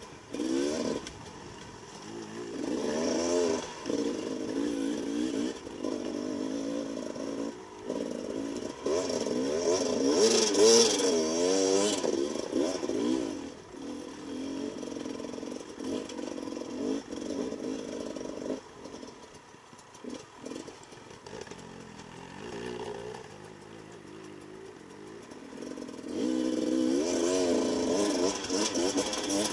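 Beta 300 RR two-stroke enduro bike's single-cylinder engine, the throttle opening and closing as it is ridden over rough trail, so the pitch keeps rising and falling. It is loudest just before halfway, runs softer for a stretch in the last third, then comes back on the throttle near the end.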